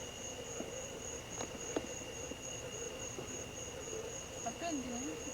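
Insects chirping steadily, a high, evenly pulsing trill, with a few faint clicks.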